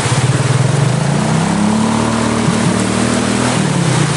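An engine running with a steady hum, its pitch rising about a second and a half in and sinking back near the end, over the even rush of flowing river water.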